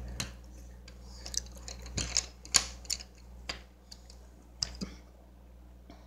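Wooden coloured pencils clicking against one another as they are sorted through and one is picked out: an irregular run of sharp clicks, loudest about two and a half seconds in. A steady low hum runs underneath.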